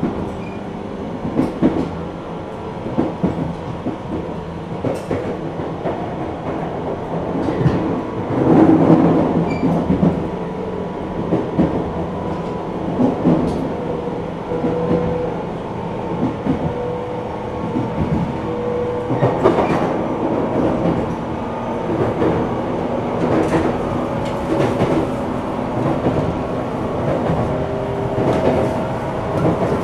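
Interior running sound of a JR West 475 series EMU, heard aboard motor car KuMoHa 475-42: a steady rumble and traction-motor hum. The wheels clack over rail joints every few seconds.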